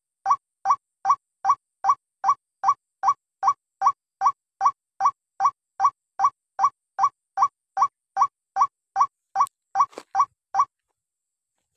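White-breasted waterhen lure call: a fast, even series of short rising 'kwak' notes, about two and a half a second, which stops about a second before the end.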